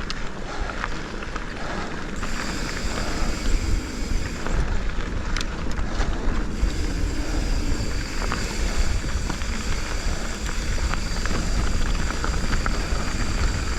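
Mountain bike being ridden along a dirt singletrack: wind rushing over the action camera's microphone with a low rumble, and tyres and frame rattling with scattered sharp ticks and knocks over the rough trail.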